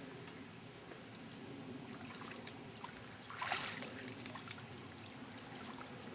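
Faint splashing and trickling of water from a person swimming, with one louder splash a little past halfway.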